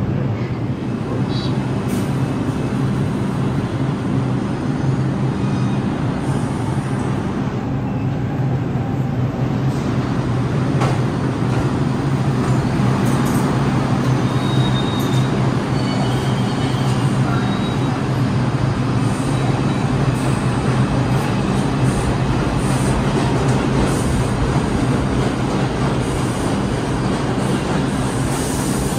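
An R62A subway train on the (6) local pulling into the station and slowing to a stop, its wheels rumbling on the rails over a steady low hum.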